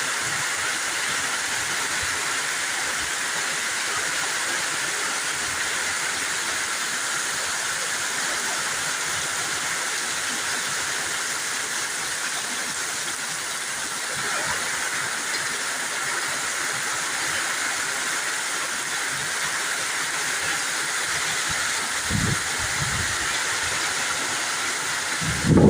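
Heavy rain falling steadily, a dense even hiss, with a few short low rumbles near the end.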